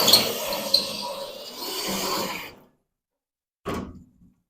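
A handheld power tool running on the car's sheet-metal body, with a few sharp clicks, stopping about two and a half seconds in. A brief short noise follows near the end.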